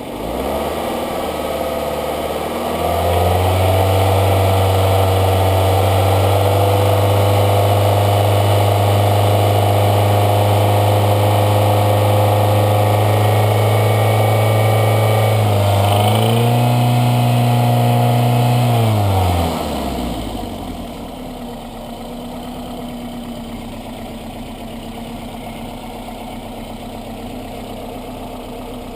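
2003 Toyota Corolla's four-cylinder engine held at raised revs for about fifteen seconds, with a brief dip and rise, then dropping back to a steady idle, while Seafoam is drawn into the intake through the throttle body.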